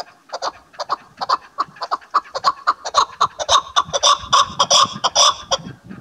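Chukar partridge calling: a fast run of short clucking notes, about five a second, that grows louder and stops shortly before the end.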